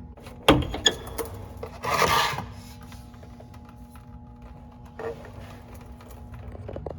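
Hand tools knocking and scraping on metal while the fuel filter is changed: a couple of sharp knocks near the start, a short rasping hiss about two seconds in, and another brief scrape near five seconds, over a steady low hum.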